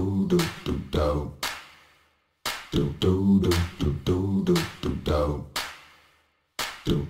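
Background music: an a cappella nasheed, voices only, with rhythmic vocal-percussion beats under the sung lines. The phrases break off into brief silences twice.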